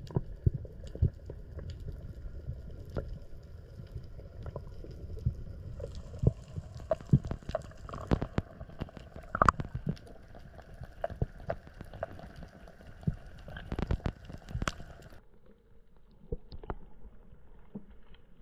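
Muffled underwater sound: a low rumble of moving water with scattered sharp clicks and knocks. About fifteen seconds in the sound changes abruptly and turns quieter.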